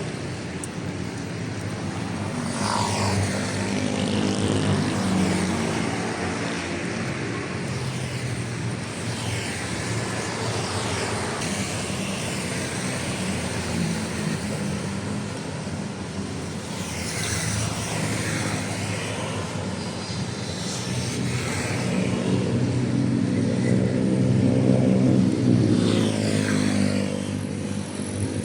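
Motor vehicles passing on a road, their engines swelling and fading one after another, with the loudest pass about three-quarters of the way through.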